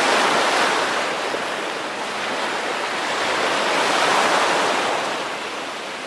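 Small waves breaking and washing up on a sandy beach: a steady rush of surf that swells twice, near the start and about four seconds in.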